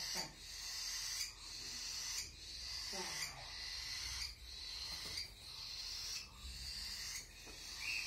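Baby cockatiels giving raspy, hissing begging calls, repeated about once a second, each call lasting under a second.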